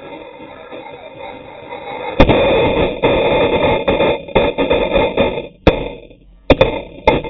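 RC monster trucks launching from the line, their noise building, then a loud knock about two seconds in as a truck strikes the low camera. Scraping and clattering follow as the camera is shoved and tumbles across the concrete, with several sharp knocks near the end.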